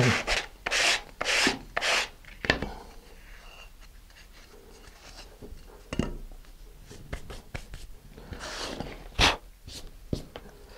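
Sandpaper on a sanding block rubbed back and forth across the cut edge of a plastic nose cone, about two strokes a second, stopping after a couple of seconds. Then quieter handling of the plastic part with a few light knocks.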